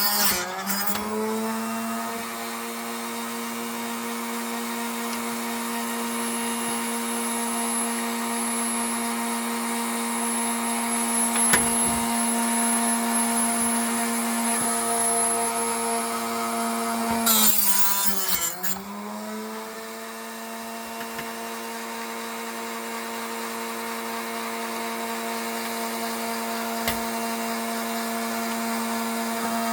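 Harbor Freight mini chop saw motor spinning up and running with a steady whine. About 17 seconds in, a burst of cutting noise comes in and the motor's pitch briefly drops under load, then climbs back to full speed and runs on.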